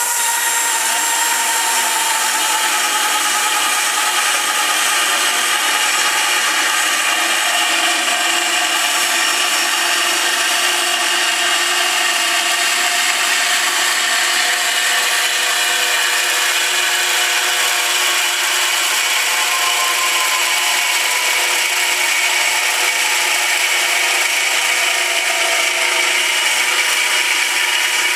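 A Rox Machinery RB-125 5-inch (125 mm) band saw running and sawing: a steady, even machine sound with faint whining tones that drift slowly.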